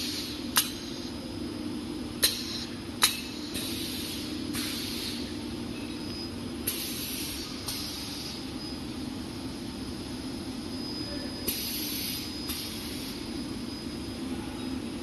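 Automatic granola-bar sorting and packing line running with a steady conveyor hum. Its pneumatic pusher gives several sharp clicks in the first three seconds, and short hisses of air come about halfway and again near two-thirds of the way.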